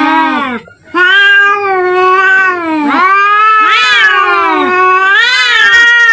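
Two domestic cats yowling at each other in a fight standoff: long, drawn-out, wavering howls that rise and fall in pitch, one after another, with a short break about a second in and the two voices overlapping in the second half.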